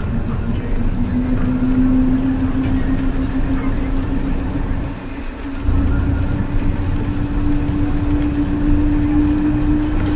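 Bus engine running as the bus drives, a low rumble with a steady hum that slowly rises in pitch. The sound drops briefly about five seconds in, then comes back louder.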